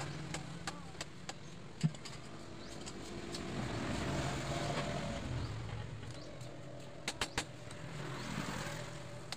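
A road vehicle passing in the background, its engine and tyre noise swelling and fading in the middle. Sharp metal clicks from pliers against the drive sprocket: one early, then a quick run of them near the end.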